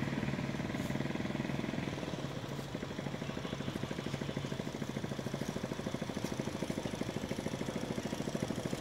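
A small engine idling steadily, with a fast, even throb.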